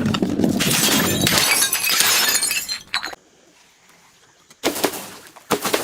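Glass breaking and shattering, a dense crackle of shards for about three seconds that stops suddenly. After a quiet gap, a few sharp cracks come in quick succession near the end.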